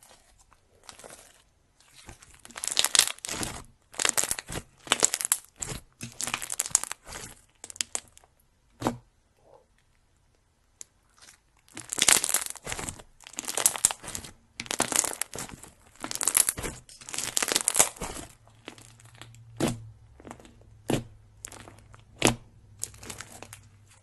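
Slime being squeezed and pressed by hand, giving crackling, crunchy squishes about once a second in two runs, with a short pause near the middle and a few single clicks near the end.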